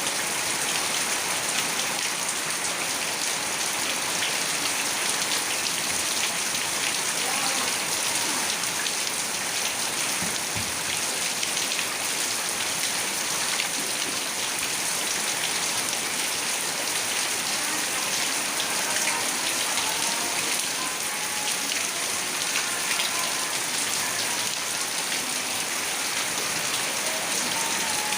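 Heavy rain pouring down and pattering on surfaces, a steady, unbroken downpour.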